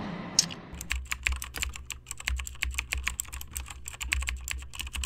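Rapid, irregular clicking, starting about a second in, over a low steady hum.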